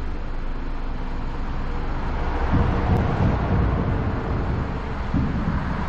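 Kia Sportage running on the inspection lane during its inspection checks: a steady low hum, with a heavier rumble from about two and a half seconds in until shortly before the end.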